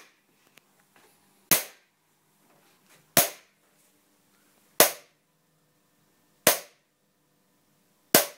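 High-voltage spark discharges in water (the Yutkin electrohydraulic effect): a capacitor fed from a 6 kV transformer fires through a spark gap and electrodes in the water, giving sharp cracks. Five cracks come at an even pace, about every 1.6 seconds, each dying away quickly.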